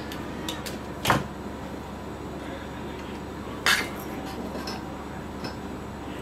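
A few short knocks and clicks of small hard objects being handled on a repair workbench, the loudest about a second in and another near four seconds, over a steady low hum.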